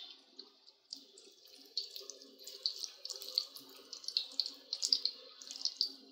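Spinach pakoras (gram-flour batter fritters) deep-frying in hot oil in a karahi: a sizzle of dense crackling pops that grows busier about a second in.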